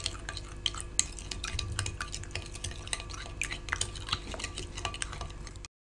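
A spoon stirring thick yogurt in a bowl: irregular clicks and scrapes of the spoon against the bowl's sides. The sound cuts off abruptly near the end.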